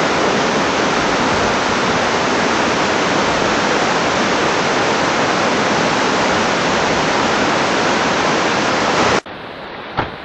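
Flood-swollen creek rushing in whitewater: a loud, steady rush of water. About nine seconds in it cuts off abruptly to a much quieter background, with a brief click.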